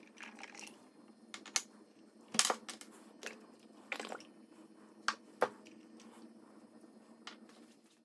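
Small plastic toy parts handled in a jar of liquid by a gloved hand: wet clicks, light splashes and plastic knocks, several of them sharp, over a steady low hum.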